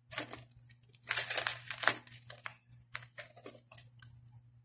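Plastic craft-supply packet crinkling as it is handled, in a dense stretch about a second in, then a few lighter crackles and clicks.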